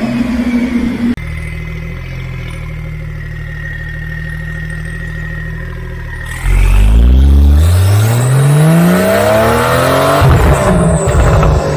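Porsche 992 flat-six running through a SpeedCraft titanium full exhaust system. It idles steadily, then about six seconds in it is revved hard, the pitch climbing for about four seconds, before breaking into a rapid crackle near the end.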